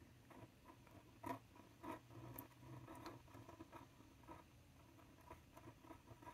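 Faint scratching and small irregular ticks of a metal dip-pen nib writing on a paper swatch card.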